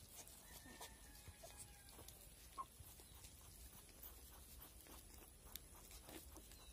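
Near silence, with faint scattered crackles and clicks of dry straw as a newborn piglet stirs in its bedding.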